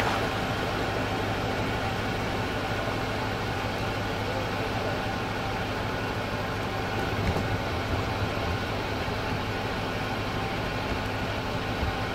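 Outboard motor of a fishing boat running at idle, a steady low hum, as the boat backs off its trailer and moves slowly across the water.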